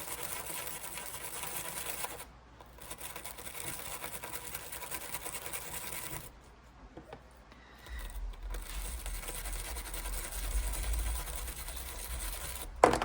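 Wire brush scrubbing green corrosion off a paintball marker's battery contact: rapid scratching in three stretches with two short pauses, and one sharp knock near the end.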